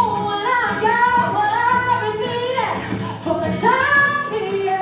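A female voice sings live over guitar and drum accompaniment, gliding between long held notes.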